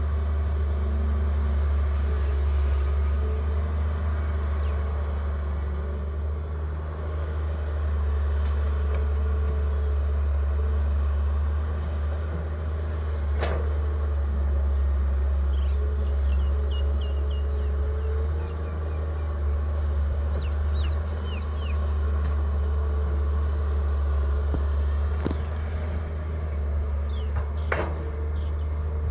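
Caterpillar tracked hydraulic excavator working loose soil, its diesel engine running steadily with a wavering whine over a deep drone. A few sharp clicks come through, once in the middle and twice near the end.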